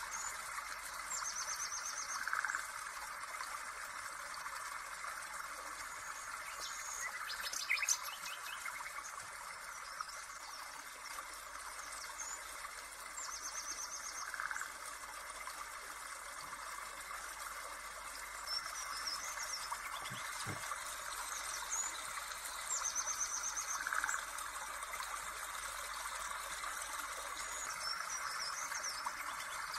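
Birds chirping and trilling over a steady hiss, with the same high trill coming back three times.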